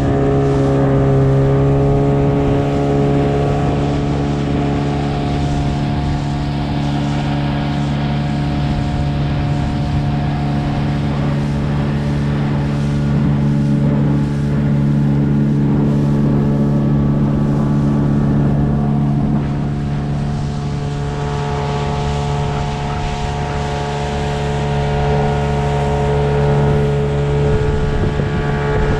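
Gladiator 9.9 hp outboard motor running at a steady speed, a constant engine drone that holds one pitch.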